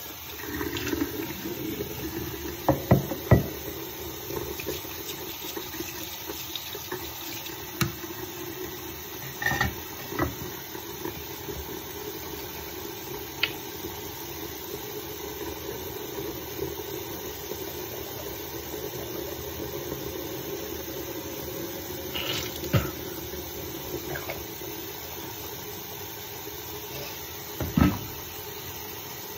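Tap running steadily into a sink, with a few sharp knocks and clicks over it, the loudest about three seconds in and again near the end.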